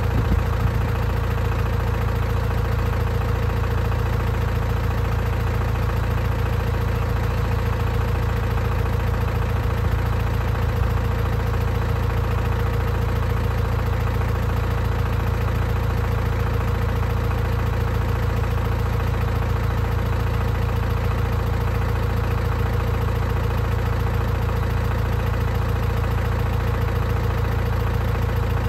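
Diesel engine of a 1987 Case IH 845XL tractor idling steadily.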